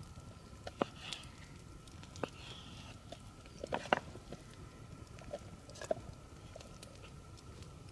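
Knife cutting raw meat on a wooden cutting board, with a handful of sharp knocks of the blade on the board, several together about four seconds in.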